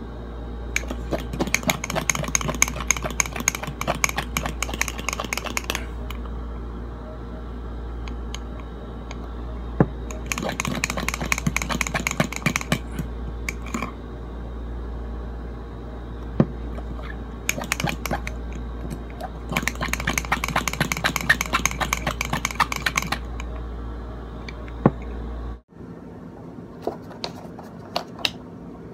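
Fork whipping dalgona coffee mixture in a ceramic mug: rapid clicking of the metal tines against the mug in several bursts of a few seconds each, with pauses between.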